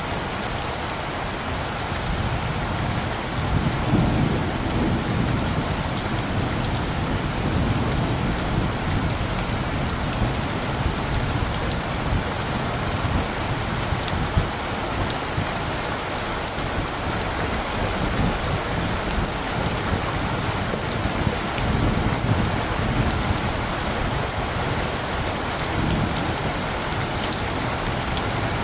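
Steady rain falling, with low rumbles of light thunder rolling in a few times, the strongest about four seconds in.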